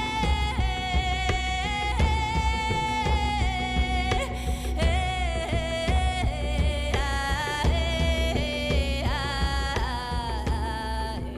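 Music: a sustained lead line that slides and bends in pitch over a steadily pulsing bass.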